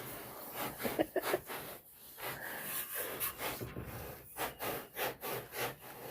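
A pig scratching itself by rubbing its body against a rough surface, making repeated scraping strokes, about two a second in the second half.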